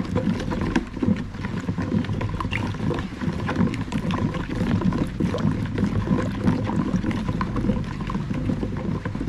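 Cake batter being stirred by hand in a bowl: a steady wet churning with many small clicks of the utensil against the bowl.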